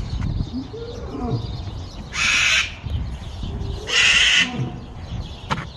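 Caged cockatiel screeching: two loud, harsh screeches about two seconds apart.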